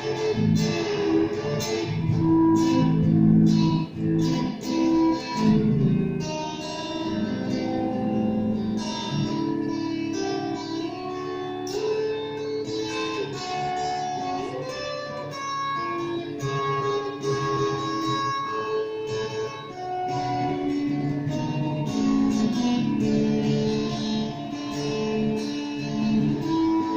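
Revelation RJT60 electric guitar played through a Vox Tonelab modelling amp, picking a steady run of single notes and short chord phrases.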